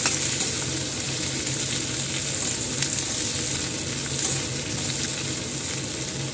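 Sliced onions sizzling steadily in hot oil in a stainless steel kadhai while a steel spatula stirs them, scraping and knocking against the pan a few times.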